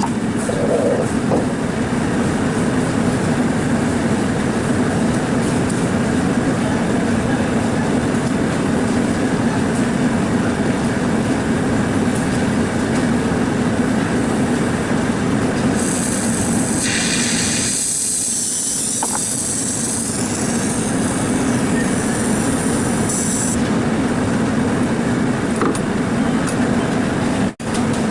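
Steady loud machine running noise with a constant hum, joined past the middle by a high, wavering whistle for about seven seconds; the sound cuts out briefly near the end.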